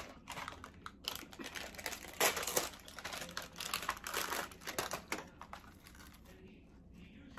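Plastic snack packaging crinkling and rustling as it is opened and a clear plastic tray is handled; the crinkling dies down about five seconds in.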